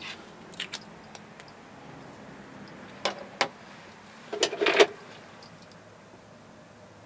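Art markers knocking and clattering on a wooden desk as they are put down and picked up, with marker caps clicking. There are a few light clicks, then two sharper knocks about three seconds in, and the loudest cluster of clacks around four and a half seconds in.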